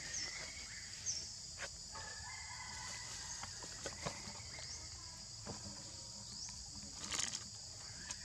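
Steady high-pitched drone of an insect chorus (crickets or cicadas). Over it come scattered crinkles and crackles of a plastic bag being rummaged, with a louder burst of crackling about seven seconds in.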